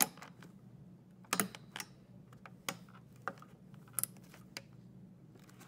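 Stock Intel CPU cooler's plastic push-pins snapping into the motherboard holes as they are pressed down: a series of sharp separate clicks, the sign that each pin has locked in.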